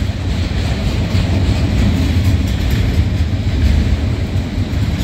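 Freight train rolling past, a steady low rumble of its cars on the rails.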